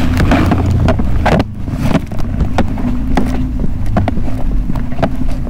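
BMW F700GS motorcycle's parallel-twin engine running at a steady pace while riding, with wind rushing and buffeting on the microphone.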